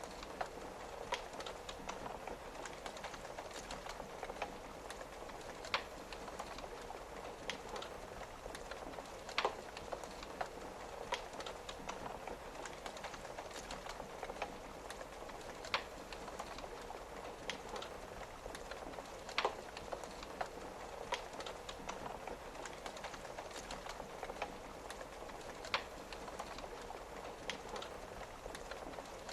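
Wood fire crackling, with a sharp pop every couple of seconds, over a steady patter of rain.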